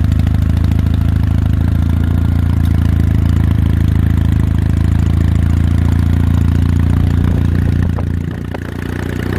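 Kawasaki W800 Street's 773 cc air-cooled parallel-twin engine idling steadily through its stock twin peashooter exhausts. The level dips briefly about eight seconds in.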